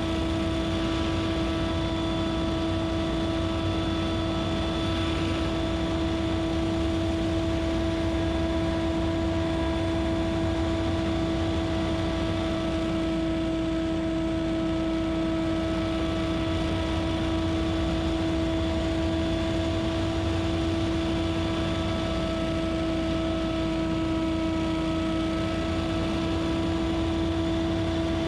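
Scag Windstorm stand-on leaf blower running steadily at working speed: a constant pitched whine over engine and air noise.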